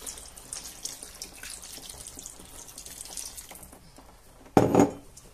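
Water poured from a glass jug into a frying pan of stew, a light trickling splash, then one short, loud knock about four and a half seconds in.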